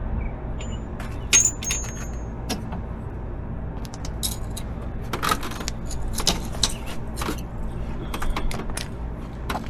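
Kawasaki Ninja 300's parallel-twin engine idling low and steady, under a string of short, sharp metallic clicks and jingles while the newly replaced gear shift linkage is being tried.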